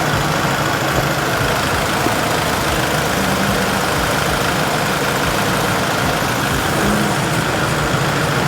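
Kubota tractor's diesel engine running steadily under a constant rushing noise.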